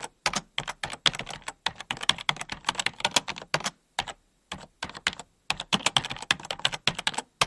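Fast typing on a computer keyboard: rapid runs of key clicks, broken by short pauses about four and five and a half seconds in.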